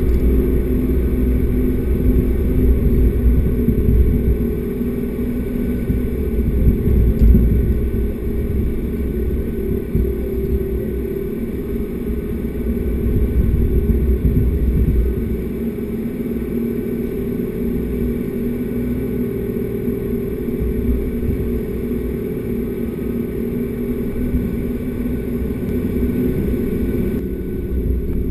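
Four-wheel-drive vehicle driving along beach sand: a steady low engine and tyre rumble, a little louder in the first half.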